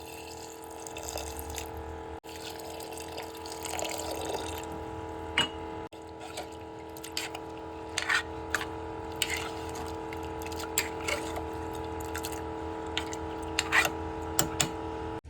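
Water dripping and splashing in a kitchen, with scattered light clicks over a steady hum.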